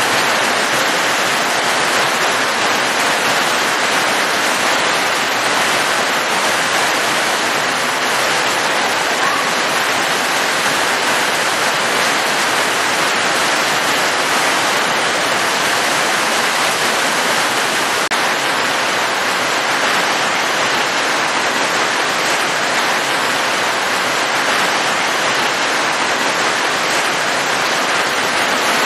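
Rain falling steadily, a dense, even hiss with no single drops or changes standing out.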